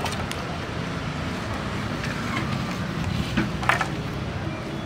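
Wooden planks knocking against each other and the ground as they are picked up and laid down: a few sharp knocks, the loudest about three and a half seconds in, over a steady low background rumble.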